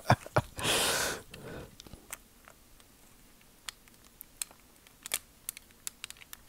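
Small plastic clicks and taps of an action figure's parts being handled while a turret is pushed into tight peg ports that it will not seat in. A short hiss about half a second in is the loudest sound.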